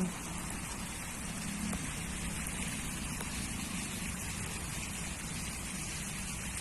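Steady hiss of heavy rain falling on a flooded garden, with no breaks or single loud events.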